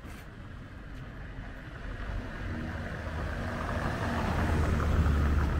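A motor vehicle approaching and passing close by, its engine hum and tyre noise growing steadily louder to a peak about five seconds in, then starting to fade.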